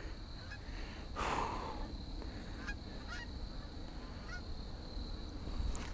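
Geese honking faintly in the distance, a string of short calls, over a low rumble of wind on the microphone, with a brief rush of noise about a second in.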